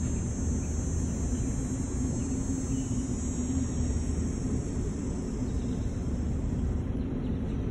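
Steady low background rumble with a constant hum, the kind of outdoor noise that distant traffic, wind or a nearby machine make.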